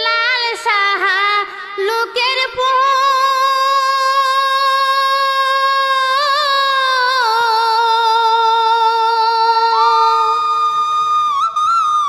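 Female voice singing the opening line of a jhumur folk song: quick wavering ornaments in the first couple of seconds, then long held notes with vibrato that step down in pitch about seven seconds in.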